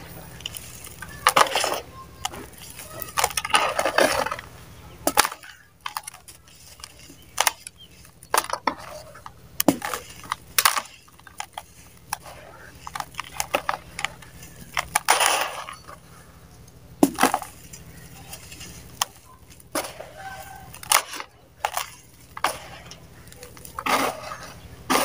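Dry mud balls crushed and crumbled by hand into loose powdery dirt: many sharp crunches and crackles, with a few longer hissing stretches as the powder is rubbed and stirred.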